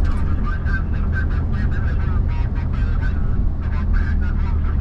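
Steady low rumble of a car driving on a wet road, heard from inside the cabin. A wavering, high-pitched, voice-like sound breaks in and out over it.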